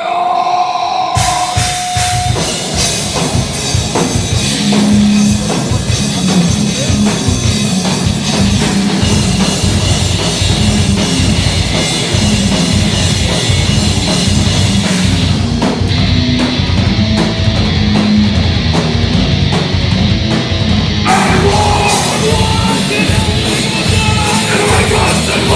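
Live heavy rock band playing loud, with drums and guitars. A held guitar note gives way to the full band coming in about a second in.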